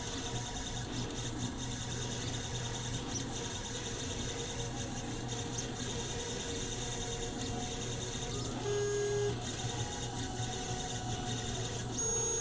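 Solidoodle 3 3D printer running a print: a steady mechanical hum, with brief pitched stepper-motor tones as the print head moves, once about nine seconds in and again near the end.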